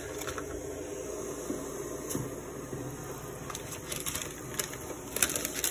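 Steady fan-like machine hum under a pan of water heating on a cooktop, with a faint tick about two seconds in and a few light clicks and rustles near the end.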